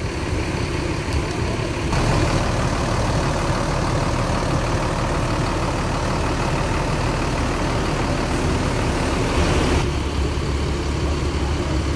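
Large intercity bus's diesel engine idling, with a louder stretch of broad noise over it from about two seconds in that cuts off suddenly near ten seconds.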